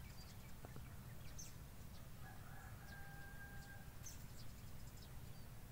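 A rooster crows once, faintly: a single long, level call that starts about two seconds in and lasts about a second and a half. A few faint clicks sit over quiet background noise.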